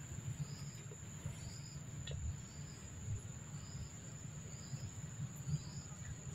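Insects in the undergrowth: a steady high-pitched buzz with a short chirp repeating about once a second, over a low rumble.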